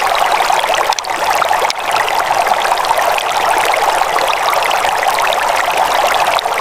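Water flowing steadily in a stream, an even rushing and trickling with no break.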